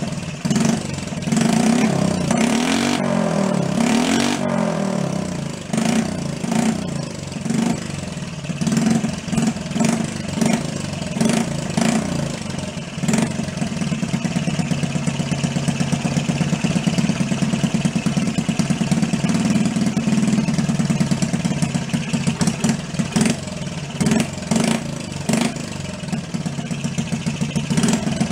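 Honda Trail 50's small single-cylinder four-stroke engine running, revved up and down a few times in the first few seconds, then settling into a steady idle about halfway through.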